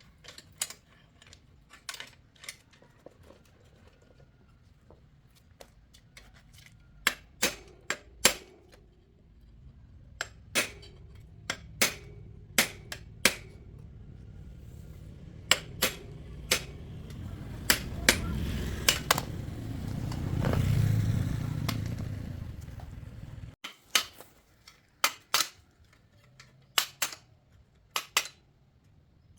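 Metal tools and bicycle parts clinking and tapping in separate sharp knocks, about one a second. Under them a low rumble builds through the middle, then stops abruptly about 23 seconds in.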